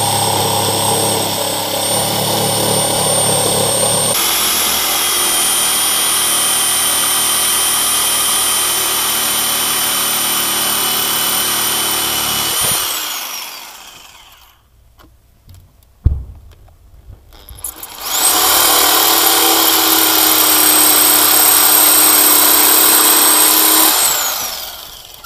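Fiolent 720 W electric jigsaw cutting through old dry wooden boards: the motor runs with a steady high whine for about twelve seconds and winds down. After a short pause with one click, it starts again with a rising whine for a second cut of about six seconds and winds down near the end.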